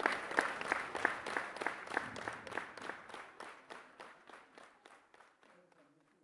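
Applause with many distinct claps, thinning out and fading away to silence over about five seconds.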